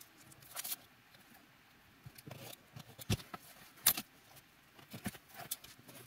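A craft knife drawn along the metal edge of a see-through ruler, cutting through a paper template and leather, with scattered soft clicks and short scrapes as the blade and ruler are handled.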